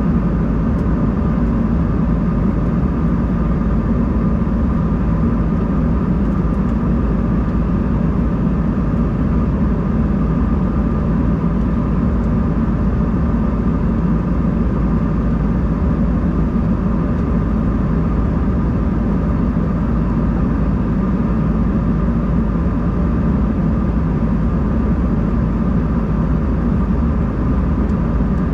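Steady cabin noise inside an Embraer 190-E2 in flight: the even drone of its engines and the airflow, with a low rumble and a faint steady whine on top.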